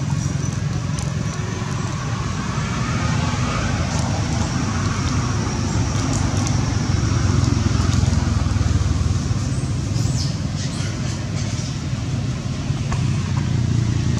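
Steady low rumble of outdoor background noise, with a few faint high chirps about ten seconds in.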